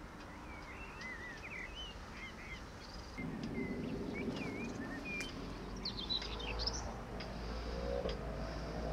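Small birds chirping and singing in short, quick calls. A low steady rumble starts suddenly about three seconds in, and faint rising tones join it near the end.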